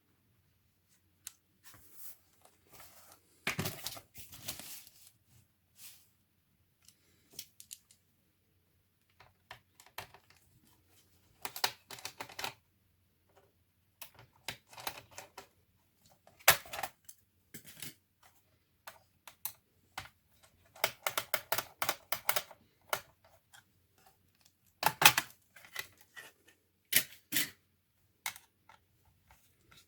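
Scattered clicks, taps and plastic clatter from handling and opening an HP 630 notebook, with a quick run of clicks about two-thirds of the way in.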